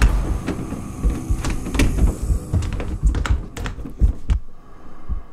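A quick, irregular run of sharp knocks, each with a heavy low thump, over a faint steady hum. The knocks stop about four and a half seconds in, leaving the hum.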